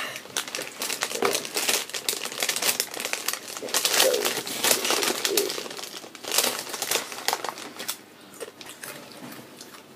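A Doritos crisp packet crinkling and rustling as it is handled and a hand digs in for chips, the crackling dying down near the end.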